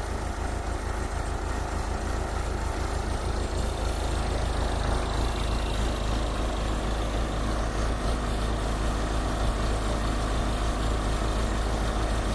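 Backhoe engine running steadily, a constant low drone that grows slightly louder a few seconds in.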